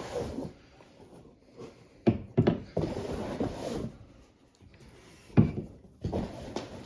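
Rummaging through a shipping box of beer cans and bottles: rustling of the packing with several knocks as containers are handled, the loudest about five seconds in.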